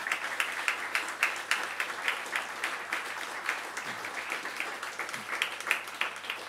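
Audience applauding, many hands clapping steadily, thinning slightly near the end.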